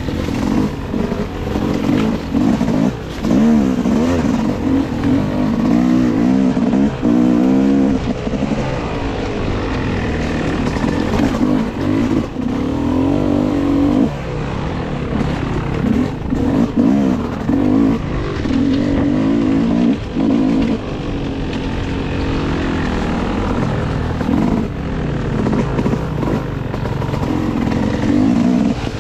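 Dirt bike engine being ridden on a trail, revving up and down over and over as the throttle is opened and closed.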